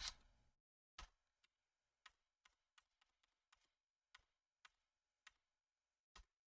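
Faint computer keyboard keystrokes: about a dozen separate taps, a third of a second to a second apart, the first and loudest right at the start. The Enter key is being pressed over and over to accept the default answer at each npm init prompt.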